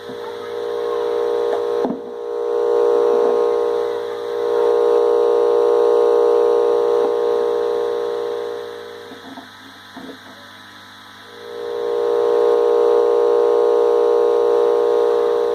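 Electrical mains hum and buzz from a 5.1-channel amplifier through its speakers, caused by a disconnected ground line. The hum swells up and fades back three times, with a sharp click about two seconds in and another about ten seconds in.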